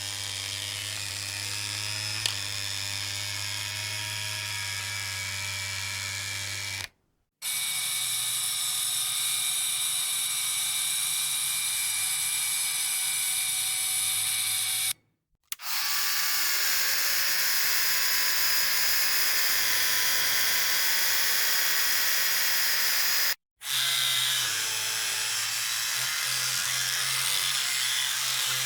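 Electric hair trimmer buzzing steadily in four separate runs of about seven to eight seconds each, with a brief silence between them. The low hum of each run differs a little in pitch.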